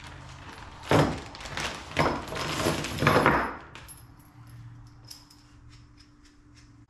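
A plastic parts bag crinkling and loose nuts and bolts jingling onto a steel workbench in three loud bursts, then lighter clinks as the hardware is sorted by hand.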